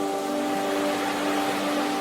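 Sea waves washing in, a rush of surf that swells in the middle and eases off, over a soft ambient music pad of held, steady notes.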